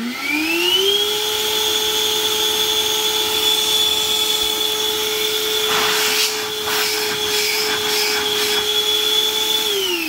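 Bosch 18V cordless wet/dry vacuum motor finishing its slow soft-start spin-up with a rising whine, then running at a steady pitch. Some handling clicks in the middle, and near the end it is switched off and winds down with a falling whine.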